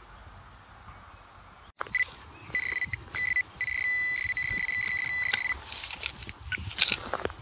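Garrett handheld pinpointer probe beeping in loose soil, a high electronic tone that signals metal close to the probe tip. It starts about two seconds in as short broken beeps and becomes nearly continuous as the probe closes on the target. Near the end the beeping stops and soil is scraped and brushed aside.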